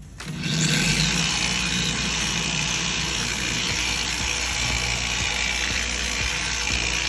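Handheld power tool switching on just after the start and running steadily with an even whir, as used for sanding or polishing boat gel coat.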